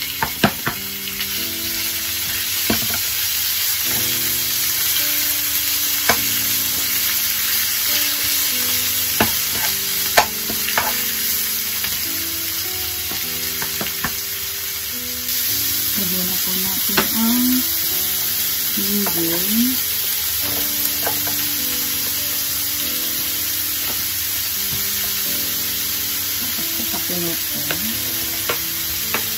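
Sliced pork and garlic sizzling in a hot non-stick frying pan, with a steady frying hiss. A wooden spatula stirs and scrapes the food, making scattered sharp clicks against the pan. Faint background music plays underneath.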